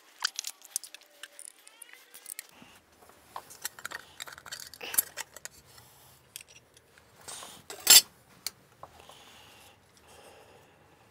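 Scattered clicks, clinks and light knocks of small metal parts being handled as the power switch box is taken off the milling machine head, with one louder sharp clack about eight seconds in.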